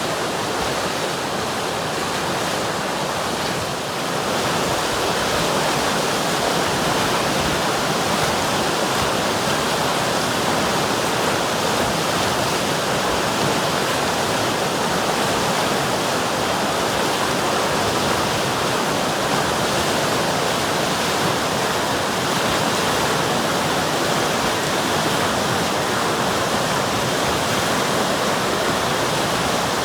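River water flowing, a steady continuous rush, a touch louder after about four seconds.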